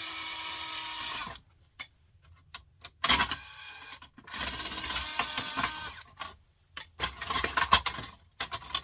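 A small handheld power tool's motor running in four short bursts of about one to one and a half seconds each, with a steady whine in each burst.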